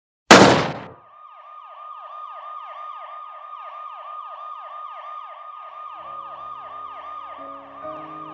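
A single loud bang, followed about a second in by an emergency vehicle siren wailing in rapid, repeated falling sweeps. Low sustained music notes come in under the siren near the end.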